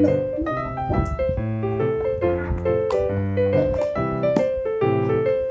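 Background piano music, a run of single notes and chords, with a few brief sharp clicks in between.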